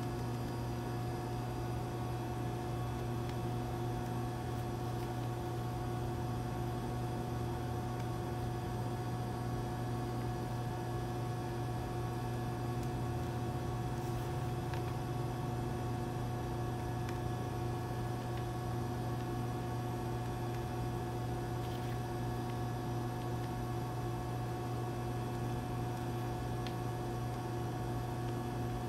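Steady machine hum with several steady tones and no change in level, with a few faint clicks.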